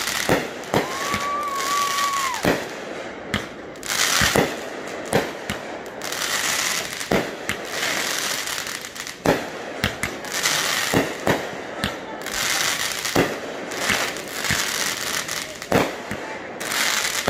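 Consumer aerial fireworks launching and bursting: sharp bangs every second or two amid hissing and crackling from burning comets and stars. A steady high whistle sounds for about two seconds near the start.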